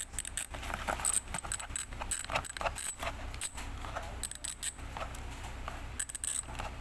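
Bicycle rear hub with an 8-pawl freehub, called a Torpedo, spun for a sound check. Its pawls ratchet in bursts of rapid metallic clicking.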